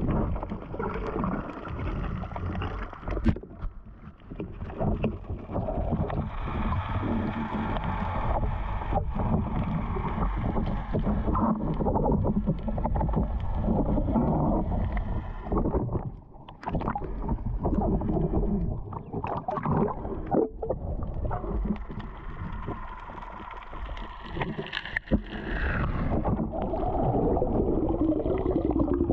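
Water sloshing and gurgling against an underwater action camera as a spearfisher swims and handles his speargun, with scattered knocks from the gear.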